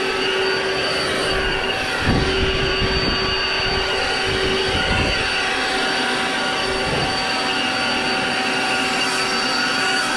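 Handheld leaf blower running steadily at full speed, a loud rushing blast of air with a high whine. A low rumble of air comes in from about two to five seconds in.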